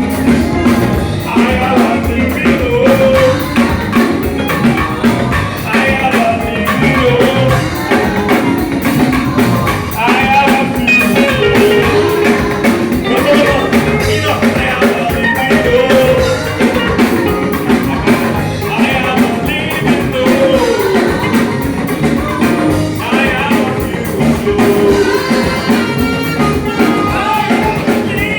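Live band music with drum kit and guitar under a sliding, bending melody line.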